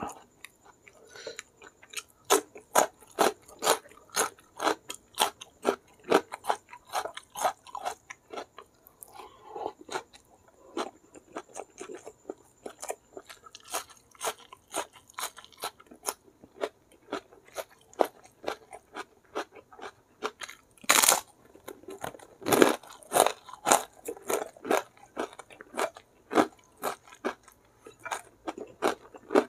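Close-miked eating sounds as a person chews mouthfuls of mutton curry and rice: wet chewing and crunching in a steady rhythm of about two to three chews a second, with two louder crunches about two-thirds of the way through.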